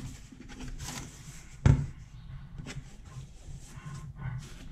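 Cardboard box flaps being pulled open and handled, with rustling and one sharp knock about a second and a half in.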